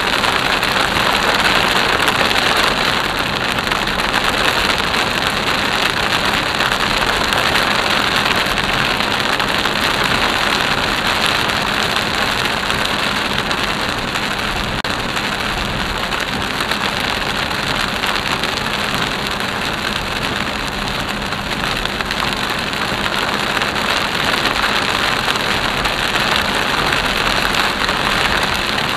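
Heavy monsoon rain pelting a moving car's roof and windshield, heard from inside the cabin, mixed with the hiss of tyres on the flooded road. A steady, dense rush that barely changes.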